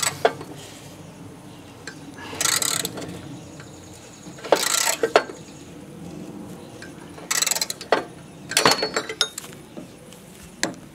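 Socket ratchet wrench clicking in short runs every couple of seconds, with sharp metal clinks, as rusty bolts holding a riding-mower deck spindle assembly are worked loose.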